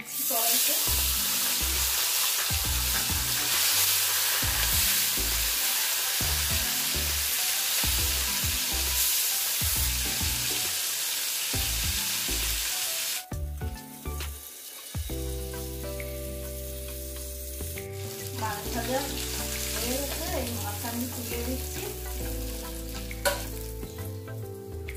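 Hilsa fish pieces frying in hot oil in a kadai, a loud steady sizzle that drops sharply about halfway through. Background music and a fainter sizzle follow, with a few clicks of a metal spatula turning the fish.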